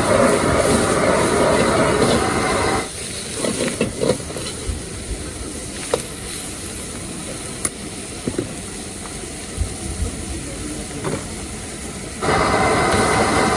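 Street-stall stir-frying over a high-flame gas wok burner. The burner's steady rush drops abruptly about three seconds in, leaving scattered clicks and scrapes. The rush comes back up just as suddenly near the end.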